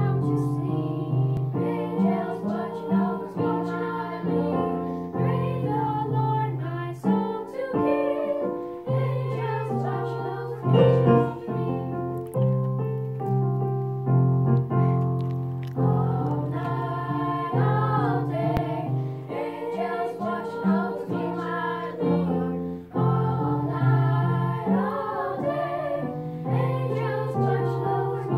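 Small ensemble of young boys singing together with piano accompaniment.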